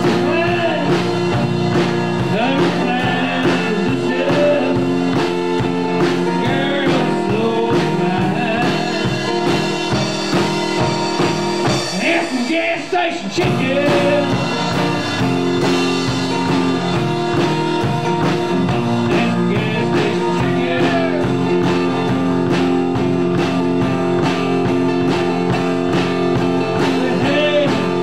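Live band playing a song: a drum kit keeps a steady beat under guitar and a singing voice. The low end drops out briefly about halfway through, then the full band comes back in.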